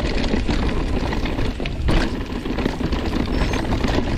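YT Capra full-suspension mountain bike riding fast down rocky dirt singletrack: a steady rush of tyre and trail noise with the bike rattling and clattering over rocks, and a sharp knock about two seconds in.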